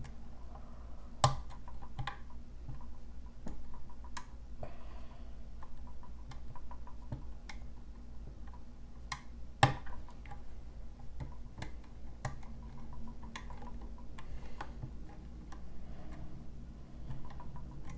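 Lock pick working the pins inside a lock: a run of small, light metallic clicks and ticks, with two sharper, louder clicks, one about a second in and one near the middle. A steady low hum runs underneath.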